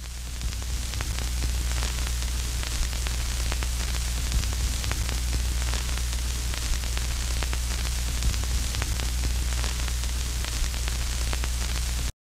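Hissing static with a steady low hum and scattered crackles, fading in over the first couple of seconds and cutting off suddenly near the end.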